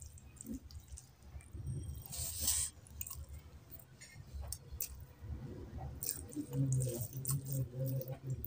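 Close-up eating sounds: fingers squishing rice into curry gravy, and wet chewing of a handful of curried rice.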